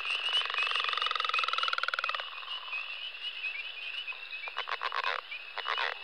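Northern leopard frog calling. It gives a rattling snore of rapid pulses for about two seconds, then two short runs of chuckling grunts later on, over a steady high-pitched chorus in the background.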